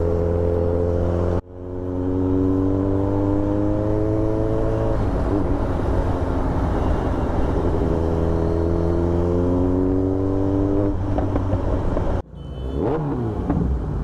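Motorcycle engine and exhaust heard from the riding bike, pulling up through the revs twice as it accelerates, over a steady low drone. The sound cuts out abruptly for a moment twice.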